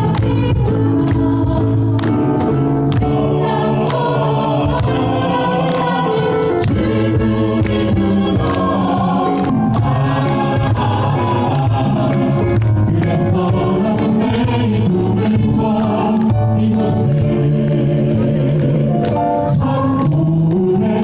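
A choir singing in sustained, overlapping parts at an even level.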